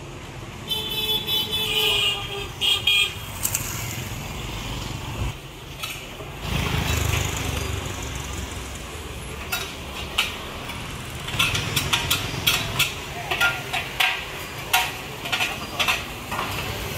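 Town street ambience with motor traffic: a vehicle horn toots a few times early on and a vehicle rumbles past about halfway. Toward the end come many sharp clinks and clatters of metal cookware and utensils from a busy hawker kitchen, with voices in the background.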